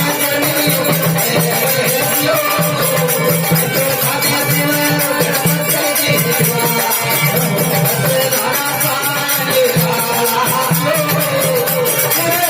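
Instrumental passage of Marwari folk bhajan music: a melody wandering over a steady held low note, with small percussion keeping an even rhythm.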